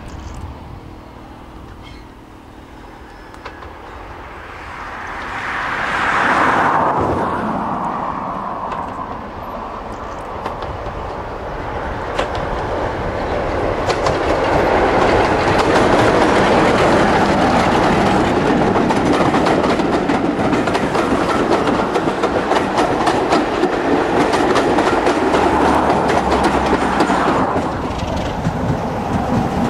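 Diesel locomotive hauling a train of coaches, approaching and growing louder until it passes close by with steady engine noise and rapid clicking of wheels over the rails. About six seconds in, a sound sweeps down in pitch.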